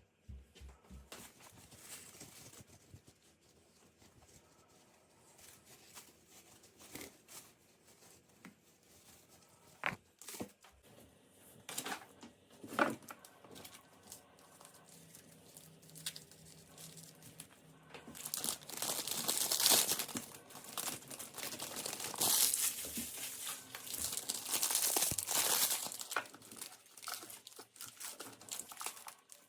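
Plastic packaging being handled, crinkled and torn by hand, with scattered small knocks and clicks at first. About two-thirds of the way through, the crinkling becomes loud and dense for several seconds.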